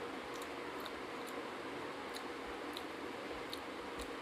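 Eating sounds: soft, wet clicks, a few a second, from chewing and from fingers mixing rice with fish curry on a steel plate, over a steady hiss.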